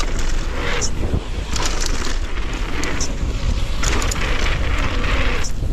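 Wind buffeting an action-camera microphone as a mountain bike runs fast down a dirt trail, under a steady low rumble of tyres on packed dirt. Short bursts of hissing about once a second as the tyres slide and scatter loose dirt and grit.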